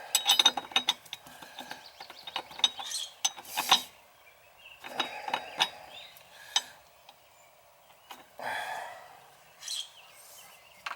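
Metal shower fittings and hand tools clinking and clicking as the plumbing is assembled, in several quick clusters of sharp clicks and clanks.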